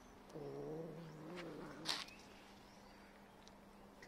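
A cat's long, low, wavering meow lasting about a second and a half, followed just after by a brief sharp noise, the loudest moment.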